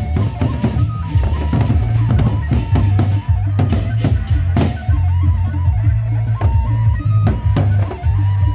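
Sasak gendang beleq ensemble playing: large barrel drums beaten with sticks in a fast, driving pulse, with sharp metallic clashes and a high wavering melody line above. A cluster of strong clashes comes about halfway through.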